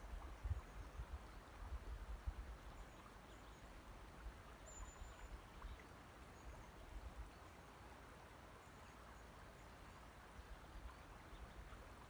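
Quiet lapping and trickling of shallow loch water over a stony shore, with light wind buffeting the microphone in low gusts during the first half that ease off later.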